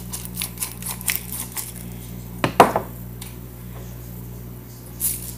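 Kitchen handling noises: small clicks and taps, then one louder clink of a dish a bit over two and a half seconds in. A steady low hum runs underneath.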